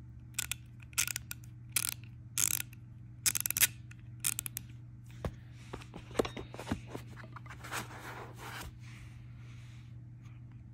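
Small quick-release ratchet being handled: a string of sharp metallic clicks and rattles in the first few seconds as its push button and mechanism are worked. Then come scattered clicks and rubbing as tools are set into and lifted out of a foam tray.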